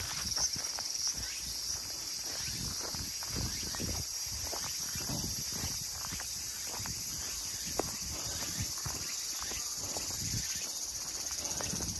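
Footsteps of a hiker walking a forest trail, about two steps a second, over a steady high-pitched chorus of insects.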